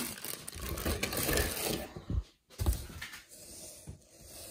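Unboxing handling noise: a sharp knock right at the start as a bagged item is set down on a wooden table, then crinkling plastic and rustling cardboard packaging, with another knock about two and a half seconds in.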